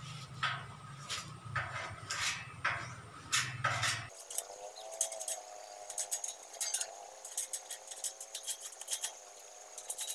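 Putty spreader scraping and clicking against welded steel tubing as two-part polyester putty is spread over the joints: a run of short scrapes and clinks, quicker and lighter from about four seconds in.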